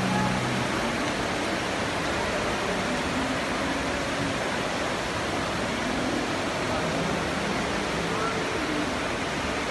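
Steady hubbub of a busy shopping-mall atrium: many distant voices and footsteps blended into an even hiss, with brief snatches of indistinct nearby talk now and then.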